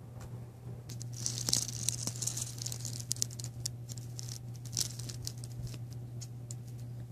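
Bacon-grease candle in a shotgun-shell casing crackling and sputtering as its flame burns, a run of sharp irregular crackles over a steady low hum.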